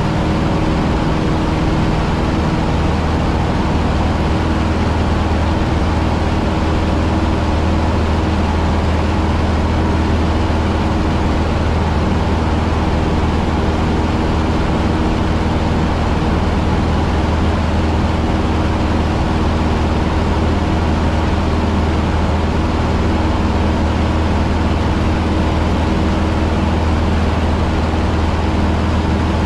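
Cessna 150's four-cylinder air-cooled piston engine and propeller running at a steady, even drone in flight, heard inside the small cabin with a deep low hum and wind noise.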